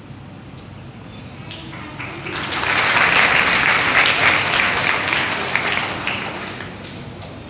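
Audience applauding: clapping swells up about two seconds in and dies away again before the end.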